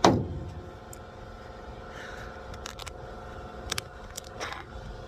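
Steady machine hum, with a sharp knock right at the start and a few short clicks about two to four and a half seconds in.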